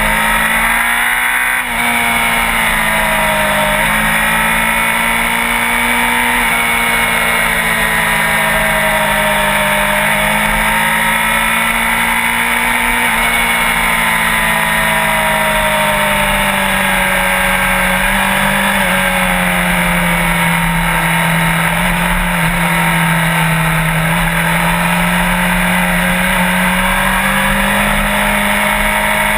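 Sport bike engine running continuously, its revs drifting slowly up and down as if cruising, with a brief dip in revs about a second and a half in.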